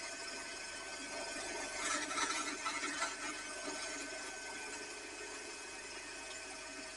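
Draper bandsaw running steadily, with a louder, rougher stretch about two seconds in as its blade cuts a small strip of wood.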